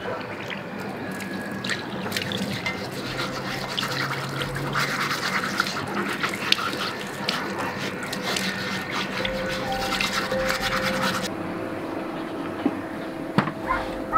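Metal scrubber scouring a Nambu cast-iron takoyaki plate in rapid, scratchy strokes, stopping abruptly about eleven seconds in.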